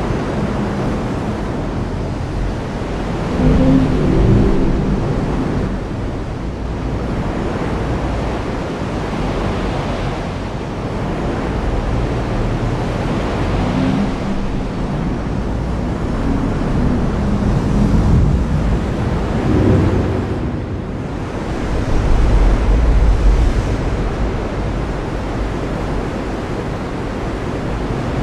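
Heavy rain falling steadily, with low thunder rumbles swelling up several times, the strongest a few seconds in and again near the end.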